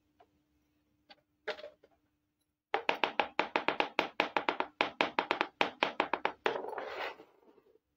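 Small plastic toy cooking pot and its lid being handled: a couple of light knocks, then a fast run of sharp clicking clatter, about six clicks a second for several seconds, ending in a short scrape of plastic.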